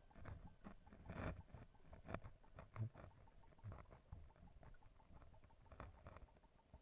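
Faint, muffled stream water heard underwater: irregular small clicks and ticks with low dull thumps, the loudest thump about three seconds in.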